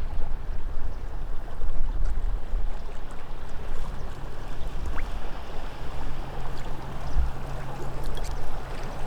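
Water sloshing and splashing, as of something moving through shallow flooded cover, over a low rumble. A faint steady low hum joins about four seconds in.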